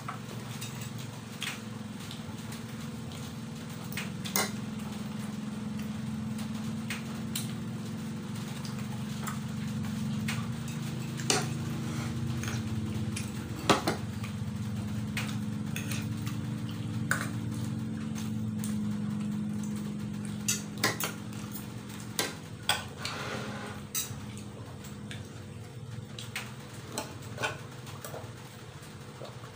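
A metal spoon clinking and scraping against a plastic plate during a meal of noodles and rice, with sharp clicks scattered through, over a low steady hum.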